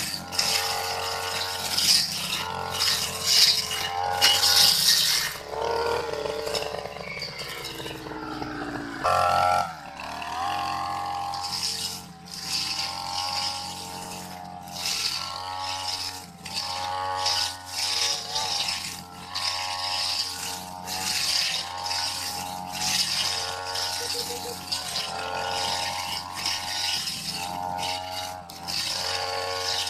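Two-stroke petrol brush cutter with a metal blade running at high revs while cutting tall grass, its pitch rising and falling as the blade bites. A rattle of stalks hits the blade throughout. About a third of the way in, the revs sag and then pick up again sharply.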